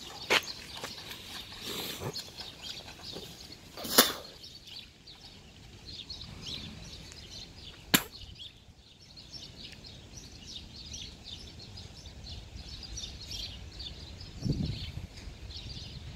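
Small birds chirping throughout, with three sharp clicks about four seconds apart, the second the loudest, and a brief low rumble near the end.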